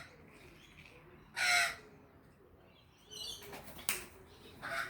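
Magpie giving harsh, crow-like calls: one loud call about a second and a half in, a short run of calls around three seconds, and another near the end, with a sharp click just before four seconds.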